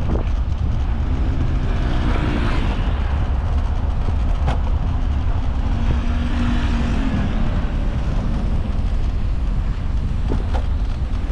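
Steady low rumble of wind and ride noise from riding an e-scooter along a paved promenade, with road traffic passing alongside: a vehicle goes by about two seconds in and another around six seconds. A couple of sharp knocks are heard in between.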